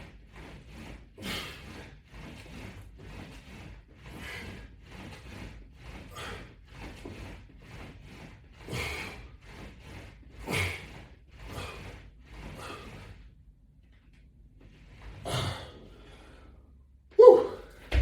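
A man breathing hard through an ab workout: short, forceful exhalations about once a second, pausing briefly, then resuming with a short louder vocal sound near the end.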